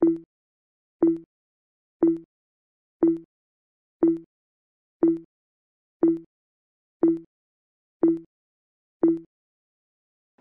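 Timer sound effect counting off seconds: ten short, identical ticks, one a second, with silence between them.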